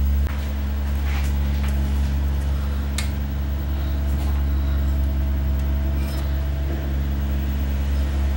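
A steady low electrical hum from the bench equipment, with a few light clicks and rubs as hands handle the plastic TV cabinet and its circuit board.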